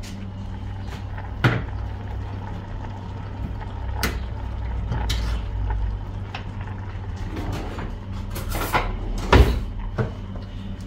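Kitchen clatter while cooking: a handful of short, sharp knocks and clinks from ingredients and containers being handled, over a steady low hum.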